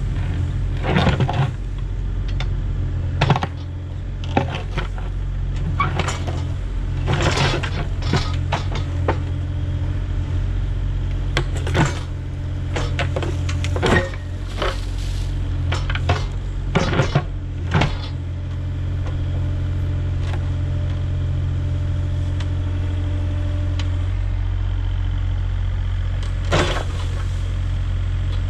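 Mini excavator's diesel engine running steadily while its steel bucket digs and scrapes through stony soil, with frequent sharp metallic clanks and knocks. About two-thirds of the way in the clanking stops and mostly the steady engine is left, with one more clank near the end.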